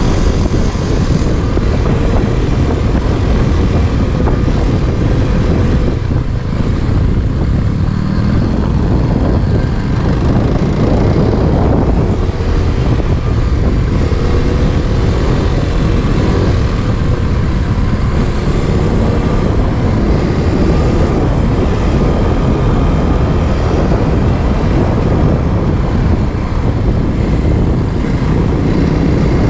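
Trail motorcycle's engine running steadily as it is ridden along a rough dirt track, mixed with a heavy low rumble of wind on the microphone.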